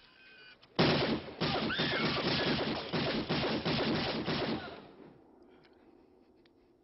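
Film-soundtrack gunfire: a long burst of rapid shots, with bullets striking a brick wall. It starts about a second in, lasts about four seconds, then dies away.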